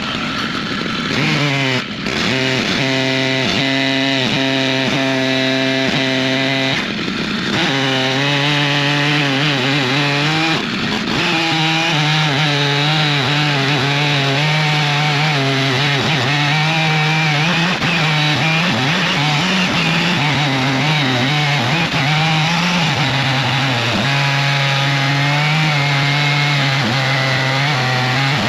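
Stihl MS881 two-stroke chainsaw on a long 56-inch bar running at high revs under load, ripping lengthwise through an elm log in an Alaskan chainsaw mill. The engine pitch sags briefly about seven and eleven seconds in and wavers through the second half as the chain works in the cut.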